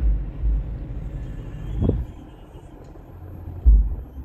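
Low rumble of a car interior, with heavy thumps at the start and again about a second before the end, and a short swelling noise near the middle, typical of a phone microphone being handled in a parked car.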